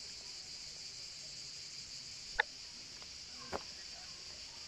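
Steady high-pitched chorus of insects, with two sharp clicks, about two and a half and three and a half seconds in.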